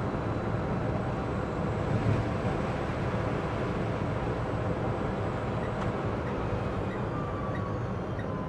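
Cabin noise inside a Citroen Ami electric city car driving in heavy rain: a steady rumble of tyres, road and rain. From about six seconds in, faint regular ticks come about twice a second, the turn indicator, and a thin whine falls slowly in pitch near the end.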